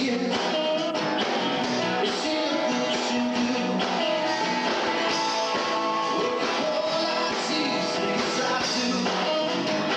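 Rock band playing live, with guitar prominent; the music runs on steadily without a break.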